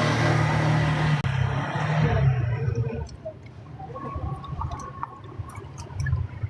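Water rushing loudly with a low rumble, cutting off about a second in, followed by quieter clicks and knocks of dishes and containers.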